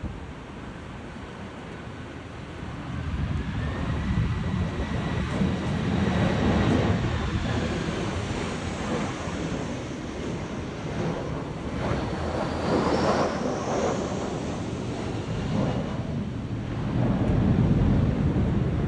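Jet airliner's engines whining and rising in pitch, swelling a few seconds in, under heavy wind rumble buffeting the microphone; typical of a go-around in strong typhoon winds.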